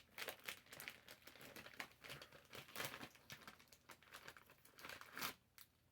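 Faint crinkling of a candy wrapper being handled, a run of small irregular crackles.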